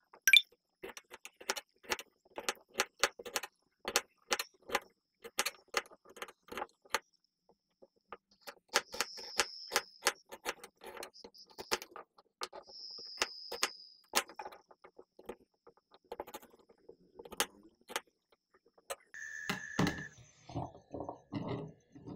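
Kitchen utensils working fresh ginger: a quick run of sharp knocks and clicks, about three a second, then two longer scraping sounds, and more clatter near the end.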